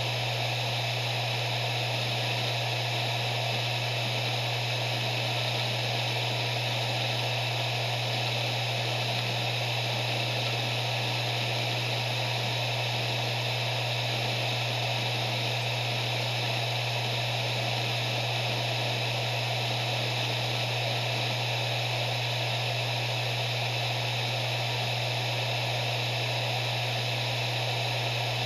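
Maxtor MaXLine Plus II 7200 RPM hard drive spinning steadily at speed: a constant whir over a steady low hum, with no seek clicks.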